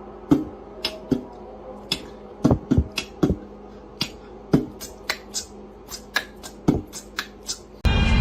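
A run of irregular sharp clicks and taps, two or three a second, over a low steady hum. Loud music cuts in suddenly at the very end.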